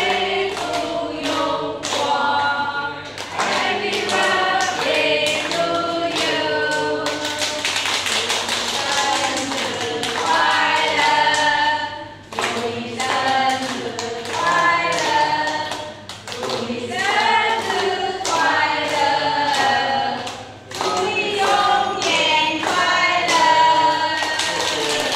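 A group of people singing together in unison while clapping in time, about two claps a second, with short breaks between lines.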